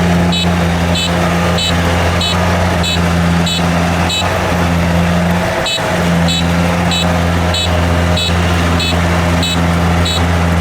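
Kubota DC70 combine harvester's diesel engine running steadily under load, dipping briefly about halfway through. Sharp regular ticking, a little under two a second, runs along with it.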